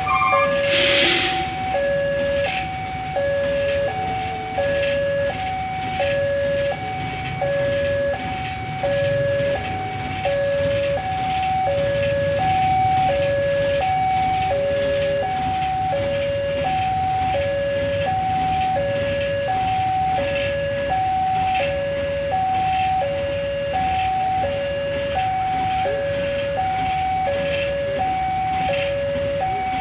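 Railway level-crossing warning alarm sounding: an electronic signal of two tones alternating high and low about once a second, the sign that a train is approaching and the crossing is closed.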